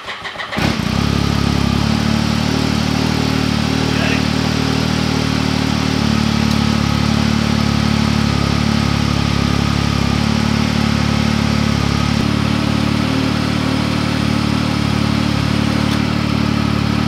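A motor running steadily with a low, even hum while new blue synthetic rope is spooled onto the winch of a Yamaha YXZ1000R side-by-side. It starts and stops abruptly.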